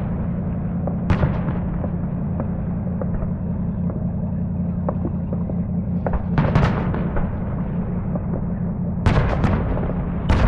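Fireworks show: shells bursting with sharp bangs, one about a second in, a cluster around six to seven seconds, and another cluster near the end, over a continuous low rumble.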